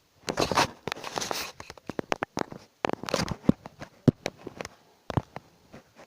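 Close handling noises: rustling and crinkling for about the first second and a half, then a string of small sharp clicks and knocks.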